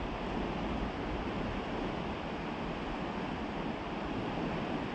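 Steady rushing noise of wind and flowing river water, even and unbroken.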